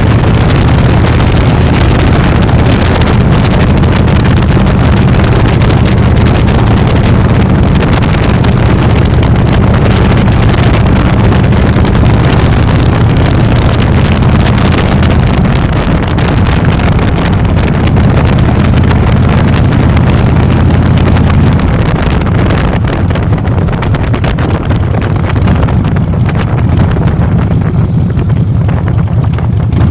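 Motor scooter engine running steadily under way, with wind rushing over the microphone. About two-thirds of the way through, the wind noise falls away and the engine eases off.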